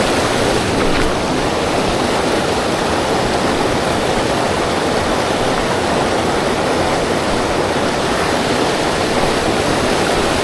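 Rushing river water, a steady loud rush that does not change.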